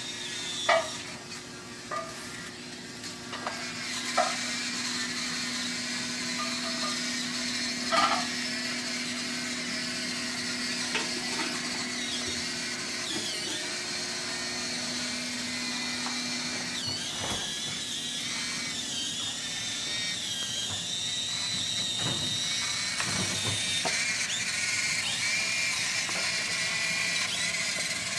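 Small electric drive motors of a homemade Arduino-controlled robot cart whirring as it drives across a tile floor, a steady whine with a few knocks in the first eight seconds.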